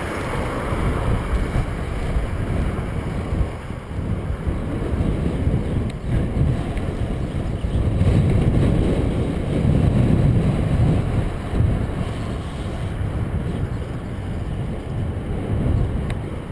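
Wind buffeting an action camera's microphone while riding along a road at speed: a steady low rumbling noise that swells somewhat about eight to eleven seconds in.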